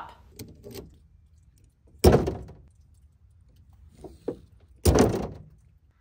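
A Rhino USA 1-inch ratchet tie-down strap's ratchet buckle being released: a few light clicks, then two loud metal clacks about three seconds apart as the lever is worked and the handle is snapped open.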